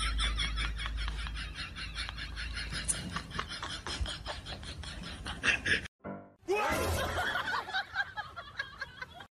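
A person laughing in quick repeated breaths over background music. The sound breaks off suddenly about six seconds in, and music carries on.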